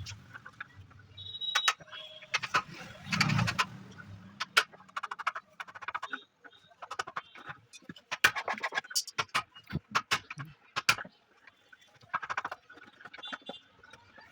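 Irregular series of sharp knocks and clicks, some coming in quick clusters, with a low hum during the first few seconds.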